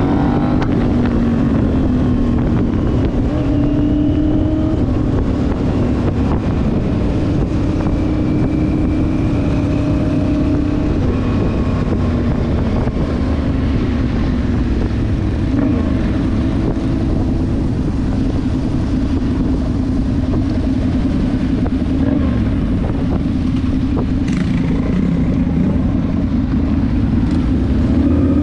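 Motorcycle engines running together in a procession, several engine notes rising and falling over a steady low rumble.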